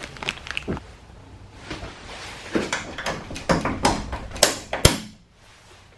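Plastic shed door parts and fitting hardware being handled and fitted: scattered clicks, knocks and rustling, with a sharp click about five seconds in.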